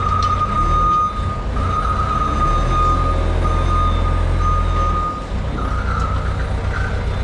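Skid-steer loader's diesel engine running as it backs up, with a steady high alarm tone sounding over it that stops about five seconds in.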